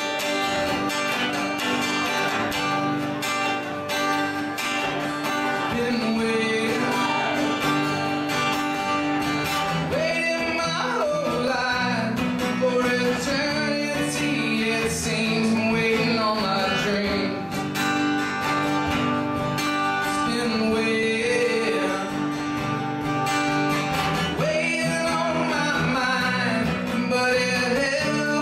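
Acoustic guitars playing a country-style song together, with a man singing the lead, his voice coming in a few seconds in.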